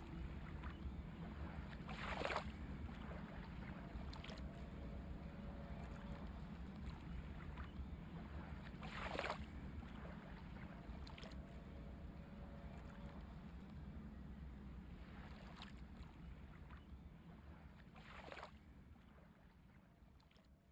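A steady low rumble with four soft whooshes of noise, fading out to silence near the end.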